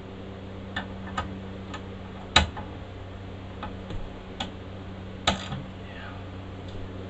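About ten irregular, sharp metallic clicks and taps of tools and hardware being handled while a rear-window gas strut is fitted, the loudest about two and a half and five seconds in, over a steady low hum.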